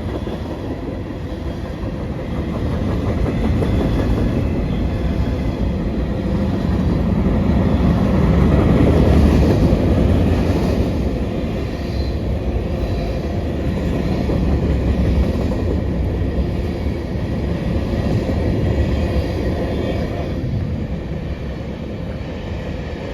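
CPKC freight train's cars rolling past, a steady rumble and clatter of steel wheels on the rails that swells louder about a third of the way through and again later.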